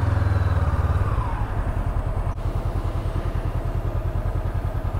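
Honda CB500F's parallel-twin engine slowing and settling to a steady, pulsing idle as the motorcycle rolls to a stop, with a single sharp click about two seconds in.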